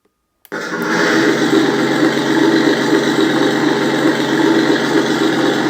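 Electronic sound unit of a 1/6 scale RC Tiger I tank playing a simulated tank engine through its speaker. The engine sound comes on abruptly about half a second in, then runs steadily, like an engine at idle.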